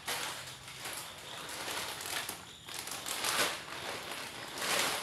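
A plastic packet of sotanghon glass noodles crinkling as it is handled and opened, in several uneven rustling surges.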